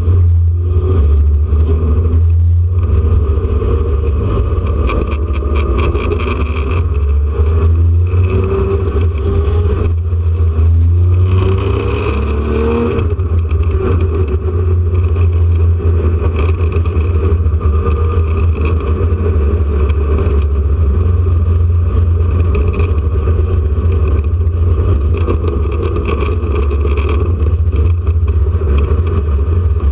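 Air-cooled flat-six engine of a 1979 Porsche 911 RSR at race pace, heard from inside the car. The revs rise and drop through the gears in the first half, then run more steadily at high revs.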